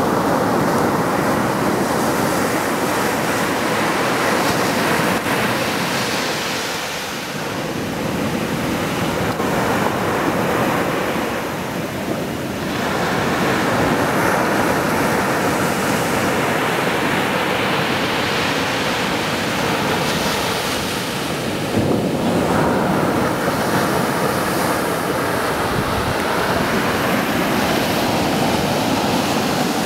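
Ocean surf breaking and washing up a sandy beach: a continuous rush of white water that swells and eases as each wave comes in.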